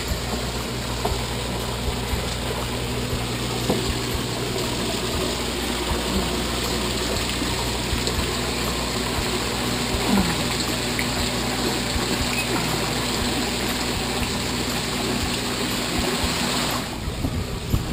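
Water splashing steadily down from an overhead aeration spout into a bait fish holding tank, over a faint steady low hum. The splashing drops in level near the end.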